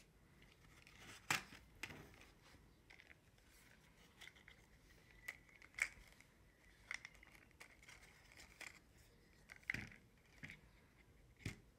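Faint scattered clicks and rustles of stiff card as hands unfold the flaps of a small puzzle package, with a sharper snap every second or so.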